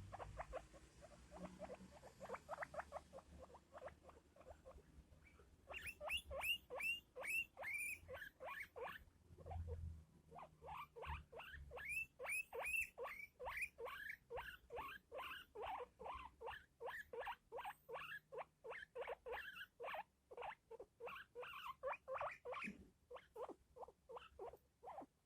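Guinea pig wheeking: a long run of short rising whistles, about three to four a second, fainter for the first few seconds. It is calling for a companion it has lost.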